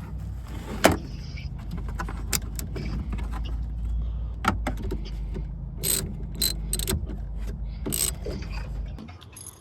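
BMW 750Li's 4.8-litre V8 running at a steady idle on fresh ignition coil packs, with scattered clicks and knocks over it. The hum stops shortly before the end.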